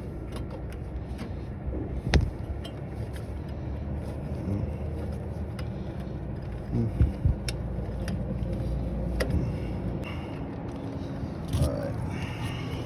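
A steady low rumble, with scattered sharp clicks and knocks from handling tools and wires at a rooftop HVAC unit; the strongest knocks come about 2 seconds and about 7 seconds in.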